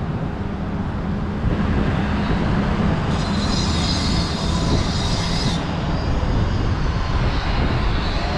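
Construction machinery running steadily while a pile driver works on a steel sheet wall. A high metallic grinding starts about three seconds in and stops about two and a half seconds later.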